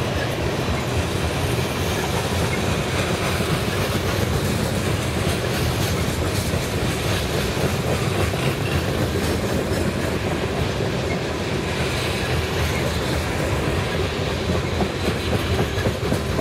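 Manifest freight train's cars rolling past steadily, the wheels giving off scattered clicks over the rails.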